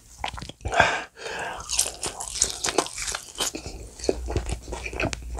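Close-miked biting into and chewing crispy, sauce-coated bone-in fried chicken: a loud crunching bite about a second in, then steady crackly, wet chewing.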